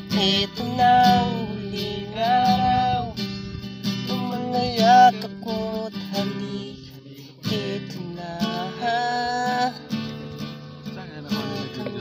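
Acoustic guitar strummed, with a voice singing a melody over it in long held notes.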